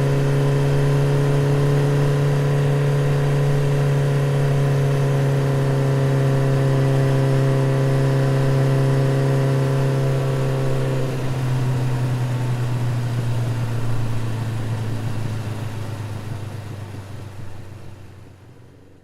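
Motorcycle engine running at a steady pitch, dropping to a lower note about eleven seconds in, then fading away over the last few seconds.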